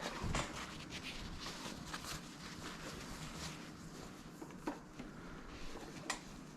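Faint rubbing and a few light clicks as a hose fitting is pushed and worked into a rubber air hose by hand.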